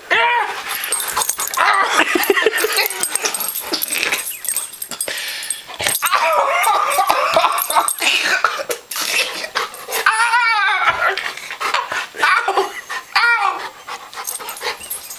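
Bernese mountain dog whining and yipping in rough play, with high whines that rise and fall in pitch, mixed with bumps and scuffles of the dog pawing at a person.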